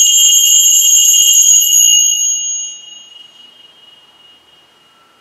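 Altar bells rung with a rapid jingle at the elevation of the consecrated host. They ring loudly, then stop about two seconds in, and one high tone dies away over the next few seconds.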